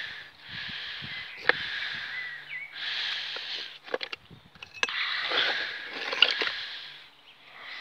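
A person breathing heavily close to the microphone, in long noisy breaths about a second each, with three sharp clicks or knocks: one about a second and a half in, and two more, the loudest, between five and six and a half seconds in.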